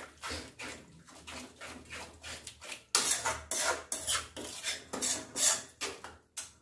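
Metal spoon stirring a thick, wet masala in a metal kadai, scraping and clinking against the pan in quick repeated strokes, busier and louder from about three seconds in.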